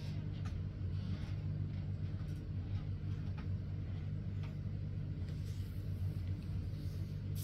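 Steady low mechanical hum, with a few faint light clicks scattered through it.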